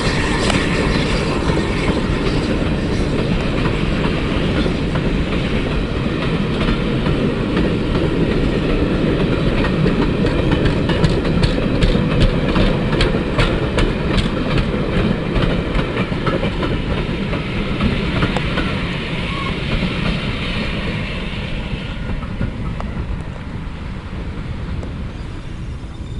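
A train hauled by the LNER A1 class 4-6-2 steam locomotive 60163 Tornado rolling past, its wheels clicking over the rail joints. The clicking comes thickest in the middle, and the sound fades away over the last few seconds.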